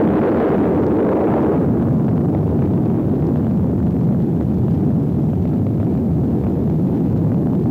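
Sound of an atomic bomb blast arriving at a distant recording position: a sudden loud onset, then a deep, steady rumble that goes on without a break.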